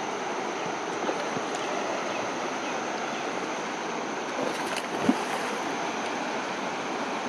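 Steady rush of river water running over rocks, with one brief knock about five seconds in.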